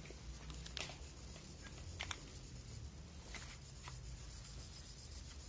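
Faint handling noise: a few light clicks and rustles of fingers on a plastic 18650 battery charger, over a low steady room hum.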